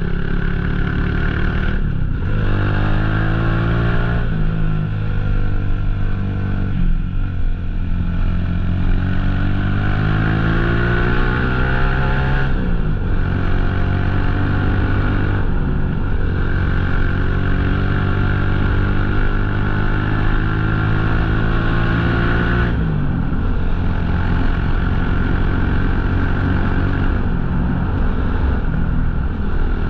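Motorcycle engine running under way, its pitch climbing through the revs and dropping abruptly at several gear changes, over a steady rush of wind.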